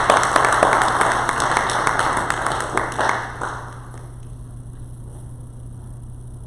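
Congregation applauding after a song, the clapping dying away about three and a half seconds in, leaving a steady low hum.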